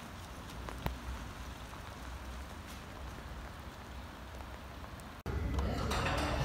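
Steady light rain falling on wet pavement, with a few drops ticking. About five seconds in it cuts off abruptly into a louder, busier background.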